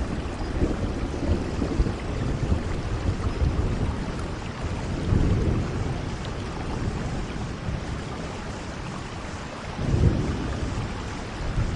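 Steady, constant rain, with brief low rumbles about five and ten seconds in.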